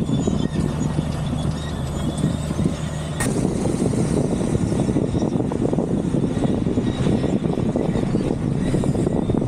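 A car driving over a rough gravel and dirt track: a steady low engine hum under the rumble and crackle of tyres on loose stones, with a single sharp click about three seconds in.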